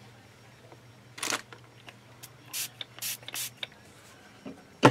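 Hand spray bottle misting water onto a rubber texture sheet as a release so the clay won't stick: four short hissing spritzes, the first about a second in. A short knock near the end.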